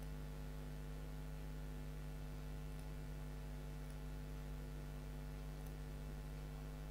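Steady low mains hum picked up by the recording microphone, with a few faint computer-mouse clicks.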